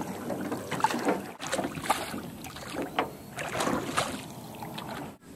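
Canoe on the water: paddle splashes and irregular knocks and bumps as people move in the boat.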